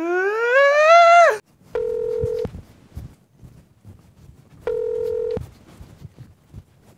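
A man screams in terror, his voice rising steadily in pitch for about a second and a half before it cuts off sharply. Then a telephone ringback tone sounds twice, each a short steady tone about three seconds apart, as his call rings through.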